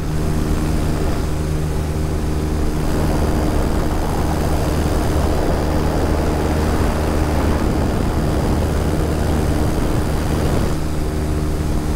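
Electric paramotor's motor and propeller running steadily at cruise power in flight, a constant hum with a rushing noise over it that swells about three seconds in and eases off near the end. The battery is nearly drained.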